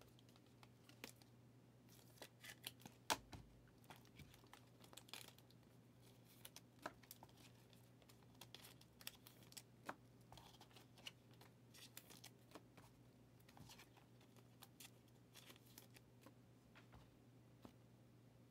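Faint handling of trading cards: scattered light clicks and rustles as cards are slid, sorted and stacked by hand.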